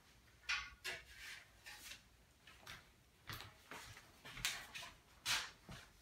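Sheets of paper rustling as they are picked up and handled, in short scattered bursts, the loudest about three and a half, four and a half and five and a half seconds in.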